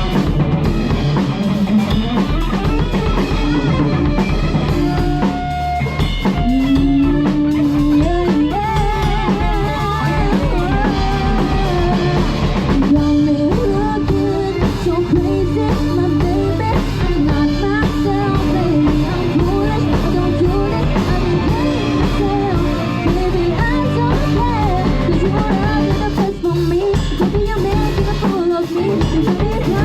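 Live band playing a pop cover: a drum kit keeps a steady beat under electric guitar, bass and a lead singer.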